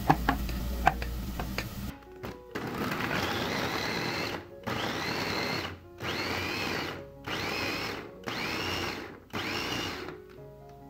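Electric mini food chopper pulsed about six times, puréeing tomato; the motor whines up to speed at the start of each burst, with short pauses between. A few light clicks come before the first burst.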